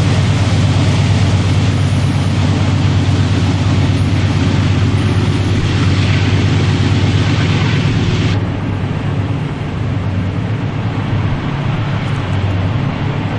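Diesel freight locomotives working upgrade: a steady low engine drone mixed with wheel and rail noise. About eight seconds in, the hiss at the top of the sound drops away abruptly while the drone carries on.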